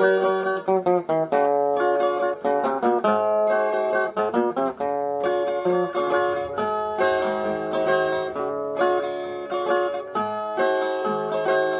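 Instrumental break in a romantic ballad: plucked guitar strings play the melody between sung verses, with no voice.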